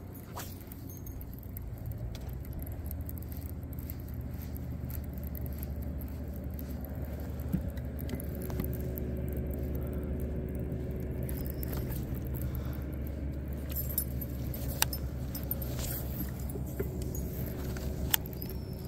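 A boat motor running steadily, with a thin steady whine coming and going and light rattling and a few sharp clicks over it.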